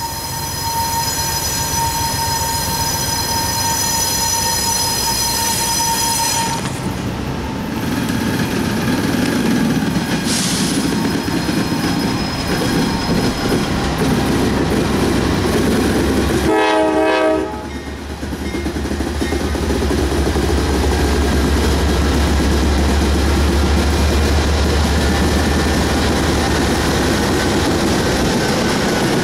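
Norfolk Southern GE Dash 9-44CW diesel locomotive approaching, with a short blast of its Nathan K5LA five-chime horn just past the middle. After the horn the deep, pulsing rumble of its diesel engine grows strong as it draws near.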